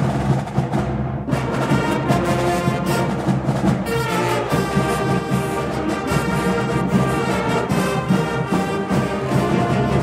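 Orchestral background music with timpani and brass.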